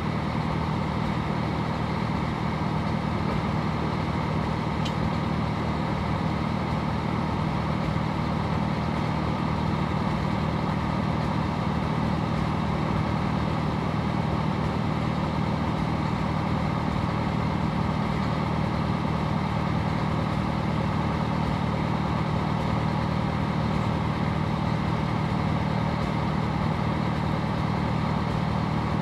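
Caterpillar 955 track loader's diesel engine idling steadily.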